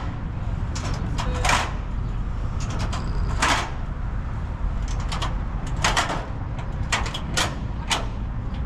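Metal extension ladder worked by a crew: short, irregular clattering and sliding bursts from the ladder sections and hardware, several close together near the end, over a steady low rumble.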